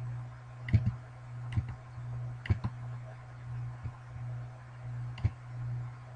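Scattered clicks of a computer mouse, about seven at uneven intervals, over a steady low electrical hum.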